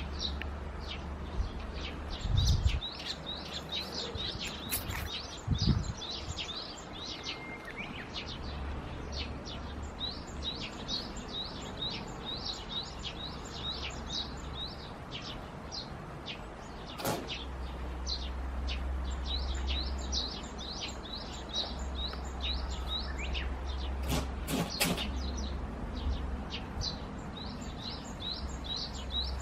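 Small birds chirping rapidly and continuously over a low rumble. A single short, sharp noise comes about two-thirds of the way through, and two more come close together later.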